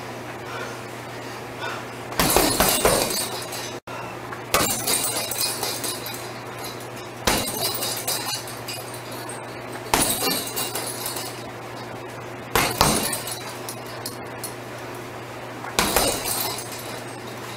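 Boxing gloves pounding a heavy punching bag in quick combinations, the bag's hanging chain jangling with each flurry. Six flurries come about every two and a half to three seconds over a steady low hum.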